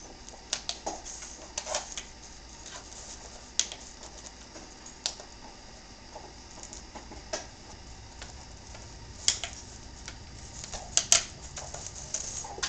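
Irregular sharp taps and clinks as a cat paws and noses at a candy cane inside a glass fishbowl, the loudest cluster about three quarters of the way through.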